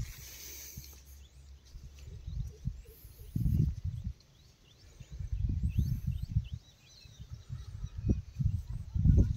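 Gusty low rumble of wind buffeting the microphone, coming and going in waves, with faint bird chirps in the background through the middle.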